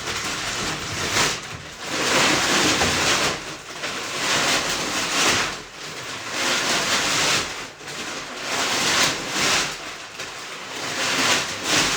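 Dry poultry feed (grains, pellets and cracked corn) poured into a plastic 5-gallon bucket feeder, in several pours of one to two seconds with short breaks between.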